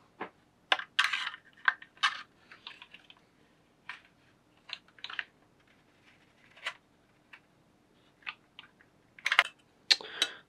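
Scattered light clicks, taps and short scratches from a steel scribe and a 3D-printed plastic fan grille being handled against an aluminium angle bracket while the mounting hole is marked, with a quick run of scratches near the end.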